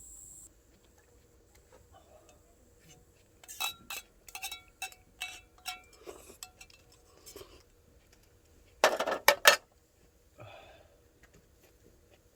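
Cookware and utensils clinking: a run of about seven sharp, ringing metallic clinks, then three louder, harsher clatters in quick succession a few seconds later.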